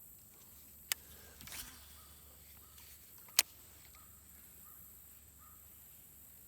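Quiet outdoor background with a sharp click about a second in, a short hiss just after, and a louder sharp click midway, with faint short bird chirps in between.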